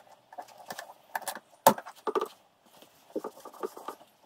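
Hand tools clicking, clinking and knocking against a plastic wheel arch and the car's body as the arch is fitted, with a sharp knock about halfway through.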